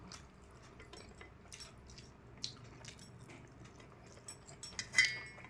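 Faint small clicks of a utensil against a plate during a tasting, then a brighter ringing clink near the end.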